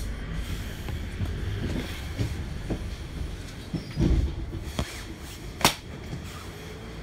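Double-decker bus running, heard from inside: a steady low rumble with rattles and knocks from the body, a heavier thud about four seconds in and a sharp click a little before six seconds.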